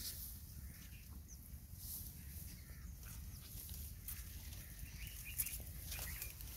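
Faint rustling and crackling of tall grass as a donkey grazes, over a low wind rumble, with a few faint bird chirps about five seconds in.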